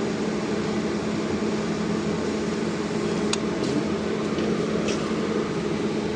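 Repaired automatic welding machine running on test: a steady electrical hum with a constant low tone and a hiss, broken by a few faint clicks.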